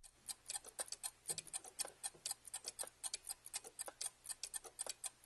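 Stopwatch ticking sound effect: a quick run of sharp ticks, several a second and a little uneven, over a faint low hum.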